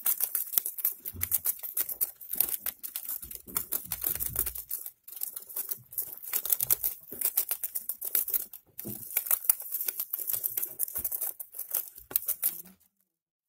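Gerbil gnawing and tearing at a sheet of cardboard: a rapid, uneven crackling of tiny bites and rips that stops abruptly near the end.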